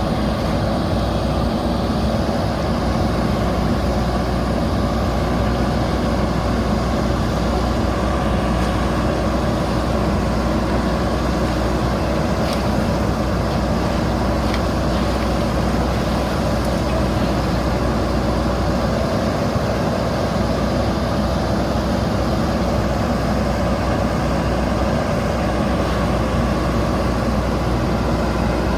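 JCB backhoe loader's diesel engine running steadily, an even mechanical hum.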